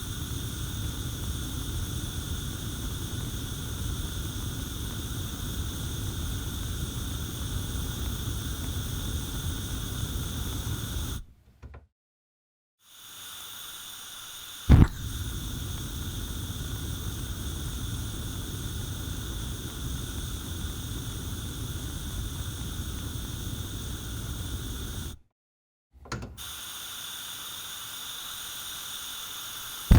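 Gas stove burner flame burning with a steady low rush, cut off about a third of the way through. After a brief silence the gas hisses, a sharp ignition click lights it about halfway through, and the flame burns again until shut off near the end. Then the gas hisses once more before a last ignition click.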